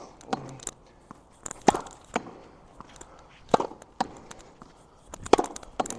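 A tennis ball rallied against a wall: sharp racket-on-ball hits and the ball striking the wall and bouncing on the wet court. The loudest hit comes about every couple of seconds, with lighter knocks in between.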